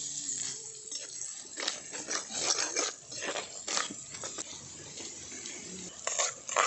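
Perforated steel spoon scraping and stirring crumbled scrambled egg in a clay pot, making irregular scrapes and clicks. Near the end the spoon scoops the egg out toward a steel bowl.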